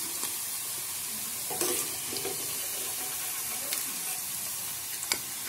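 Batter-coated cauliflower florets sizzling steadily as they deep-fry in hot oil in a pan. A few light clicks of a metal slotted spoon against the pan and a steel bowl come through it.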